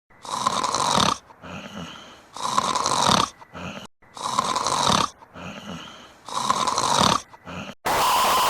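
A baby snoring: four snores about two seconds apart, each a louder snore followed by a softer, fading breath. Near the end it cuts abruptly to a steady hiss with a held tone.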